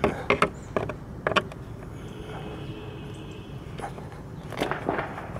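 Plastic clicks and creaks as a screwdriver pries at the slatted lower grille of a VW Golf 5's front bumper. There are several sharp snaps in the first second and a half, a faint drawn-out creak in the middle, and another cluster of clicks near the end.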